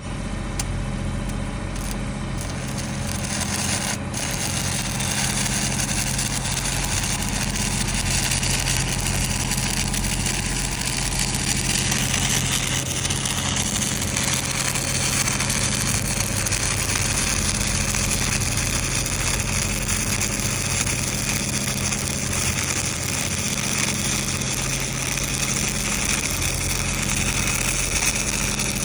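Stick welding arc with a cellulose-coated electrode crackling and hissing steadily during the cap pass on a pipe flange, over the steady low hum of the welding machine.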